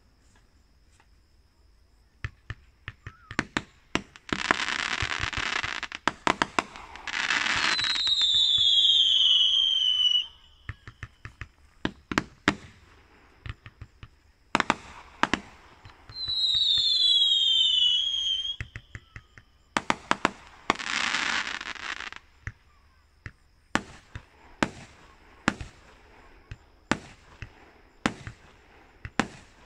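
Fireworks going off: after a couple of seconds of quiet, sharp bangs and crackling pops start. Hissing rushes lasting two or three seconds come several times, and twice there are several falling whistles together from whistling shells. Near the end there is a steady run of bangs, about two a second.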